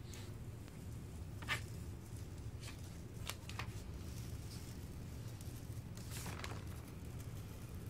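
Stencil sheet crinkling as it is peeled back and torn from the primed cabinet surface: a few short rustles, about a second and a half in, twice around three and a half seconds, and a longer one near the end. A steady low hum runs underneath.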